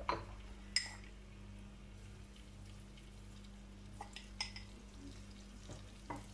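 Diced onion sautéing gently in butter and oil in a frying pan, a faint sizzle, with a few light clinks and taps as salt and spices are shaken in.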